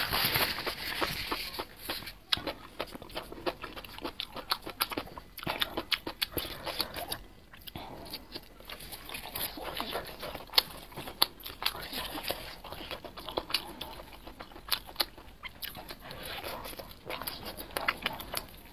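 Close-miked chewing and biting of glazed grilled barbecue skewers: a steady run of small crunches and mouth clicks, loudest in the first couple of seconds.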